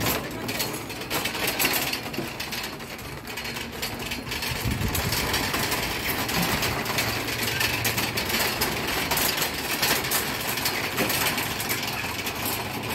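Empty wire shopping cart rattling as it is pushed over brick paving: a continuous clatter from the wire basket and casters.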